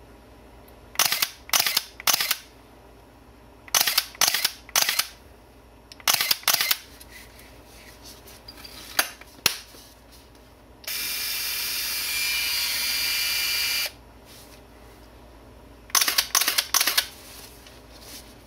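Contax N1 35mm autofocus SLR being fired: six short bursts of sharp shutter-and-mirror clicks, two to five in quick succession each time. About eleven seconds in, a steady motor whir runs for about three seconds, then stops.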